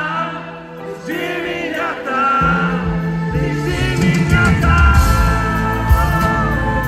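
A live pop ballad over a concert PA: a male singer holds long, wavering notes over a backing band, and a heavy bass line comes in about two and a half seconds in.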